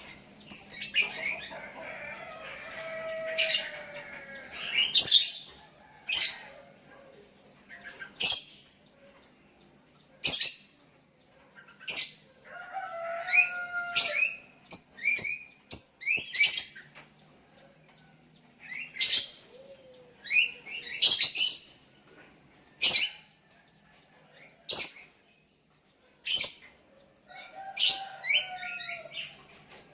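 Sooty-headed bulbuls calling back and forth: sharp high chirps every one to two seconds, broken by short gurgling song phrases near the start, around the middle and near the end. These are bulbuls answering a calling rival.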